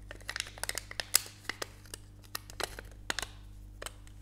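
Irregular small clicks and crackles of plastic drinking straws being pushed and twisted into a folded piece of aluminium drinks can.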